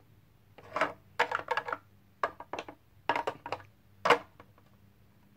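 Light plastic taps and clatters of a small toy figure being moved and tapped against a plastic toy house, coming in about five quick clusters.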